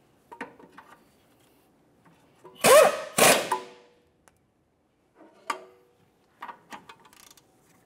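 Steel pry bar clanking into place against the front suspension, two loud metal hits about half a second apart, followed by lighter metallic clicks and taps as the outer tie rod end nut is tightened with the stud braced.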